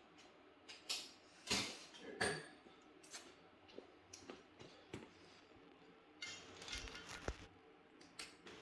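Metal hand tools clinking and clattering in scattered separate clicks while a wobble socket extension is looked for, with a short stretch of rummaging and a couple of low knocks near the end.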